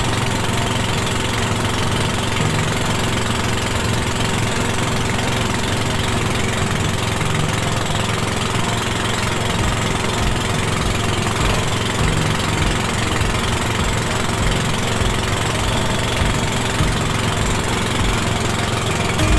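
Motorboat engine running steadily at towing speed, close by, over a continuous rush of wake water.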